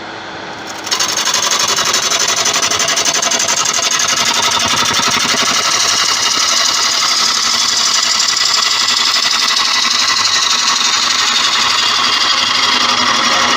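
A turning tool cutting into a large tiger wood blank spinning on a Laguna wood lathe: a loud, steady cutting noise with a fast, even chatter, starting about a second in over the lathe's hum.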